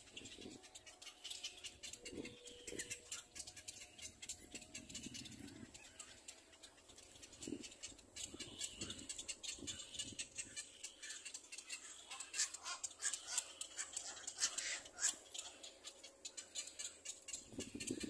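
Little black cormorant chicks at the nest giving rapid, high-pitched begging calls and rasps, busier and louder in the second half.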